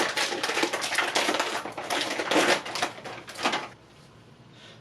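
Plastic snack wrapper crinkling and crackling as a pack of crackers is handled and torn open, a dense rapid run of crackles that stops about three and a half seconds in.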